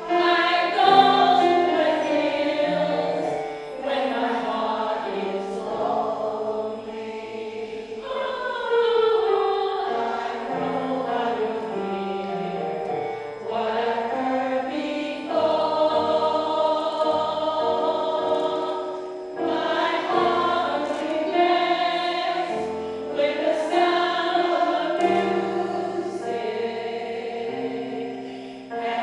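Choir singing in harmony, the voices holding long chords that change every second or two.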